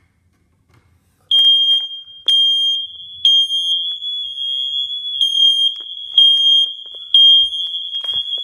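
Smoke detector sounding its test alarm. A shrill, high-pitched tone starts about a second in and runs on, surging louder about once a second.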